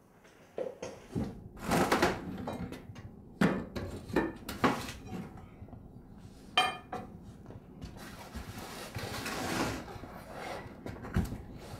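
Irregular clatter of hard objects being handled: scattered knocks and sharp clinks, one of them briefly ringing, like dishes or utensils.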